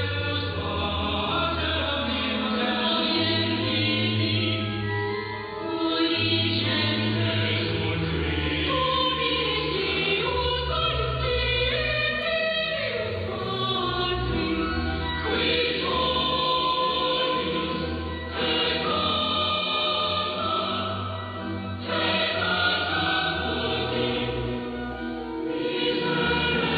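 Church choir singing a sustained liturgical chant, heard through a longwave AM radio receiver, so the sound is muffled, with nothing above the middle treble.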